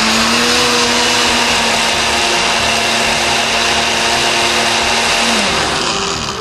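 Countertop blender running on its liquefy setting, puréeing tomatoes, chilies, almonds and spices with about a cup of water: a steady motor whine over the churning liquid. The motor slows and winds down about five seconds in as it is switched off.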